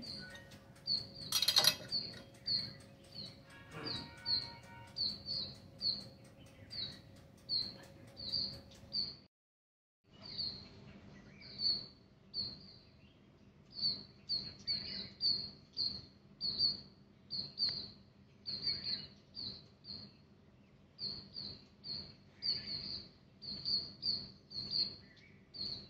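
A small bird chirping over and over, about two short high chirps a second, with a sharp click about a second and a half in. The sound cuts out completely for about a second partway through, then the chirping goes on.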